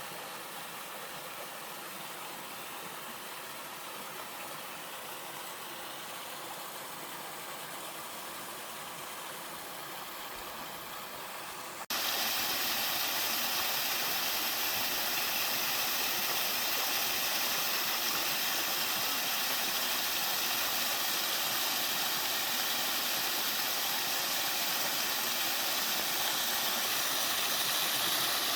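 Mountain-stream water rushing over rocks in a steady hiss. About twelve seconds in it cuts abruptly to a louder, brighter rush of a waterfall.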